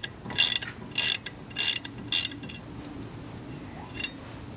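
Hand ratchet wrench turning a fastener at the front brake rotor's hub, worked in short strokes. Its pawl rasps in four quick bursts about half a second apart, then stops, with one more click near the end.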